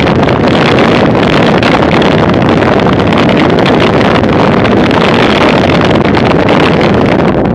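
Loud, steady wind noise on a bike-mounted camera's microphone as a road bike rides at about 33 to 44 km/h, mixed with tyre and road rumble.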